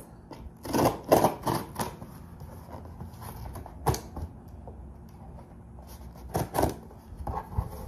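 Hands working at a cardboard box with a small yellow-handled cutting tool: scattered scrapes and rustles in the first two seconds, a sharp click about four seconds in, more scraping around six and a half seconds, and a light knock near the end.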